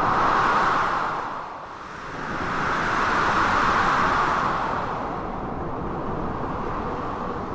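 Blizzard wind gusting in two long swells that rise and fall, over a steady rushing storm noise.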